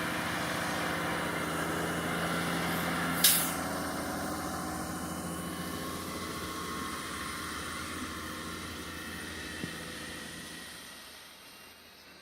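Heavy-vehicle engine running steadily in snow, fading away near the end, with one short sharp hiss about three seconds in.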